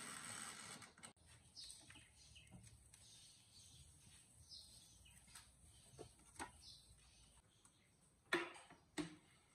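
A brief hiss at the start, then soft crinkling of cling film peeled off a tray of proofed dough balls, and near the end two sharp knocks as the metal baking tray is set down.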